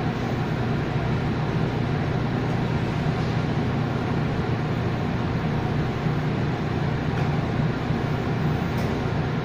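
Steady low machinery hum and rumble of a bakery production room's equipment and ventilation, unchanging throughout.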